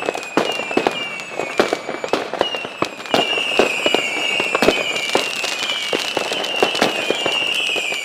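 Fireworks rockets exploding: a dense run of sharp bangs and crackles, overlaid by several high whistles that each fall in pitch.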